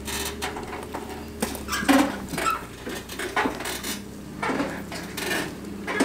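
Loaded utility trailer rattling and clanking at uneven intervals as a pickup tows it over rough ground, the loudest clatter about two seconds in, with a steady low engine hum underneath.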